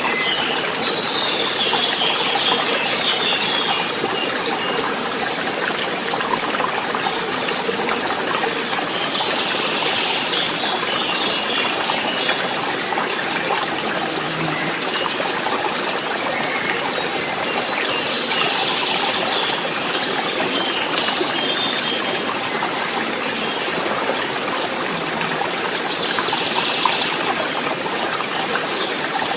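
Forest stream running steadily, a continuous rush and trickle of water. Brief clusters of high chirps come back about every eight seconds.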